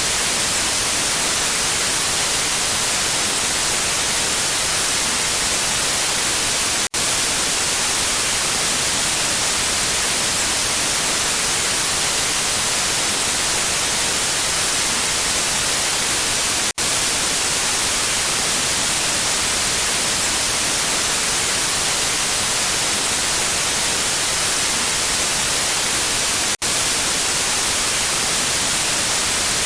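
Steady lost-signal static hiss, strongest in the treble, broken by three brief dropouts about ten seconds apart.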